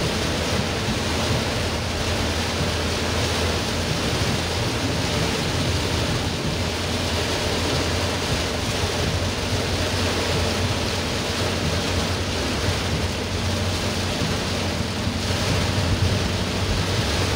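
Heavy rain on a moving car's roof and windscreen together with wet tyre and road noise, heard inside the cabin as a steady hiss over a low hum.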